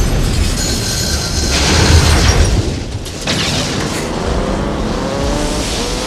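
Film sound effects of a semi tow truck smashing down into a concrete storm drain: a heavy crash with scraping debris, then from about three seconds in an engine revving with rising pitch as the truck drives on.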